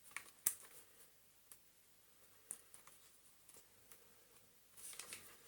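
A few faint clicks and taps, one sharper about half a second in and a small cluster near the end, from meter probes and the vacuum's switch being handled during a continuity test. No continuity beep sounds, because the meter shows nothing happening.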